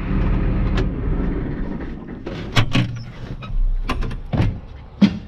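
John Deere 8300 tractor's diesel engine running and then shut off, dying away over the first two or three seconds. It is followed by a series of knocks and clanks from the cab door and the steps as the driver climbs down out of the cab.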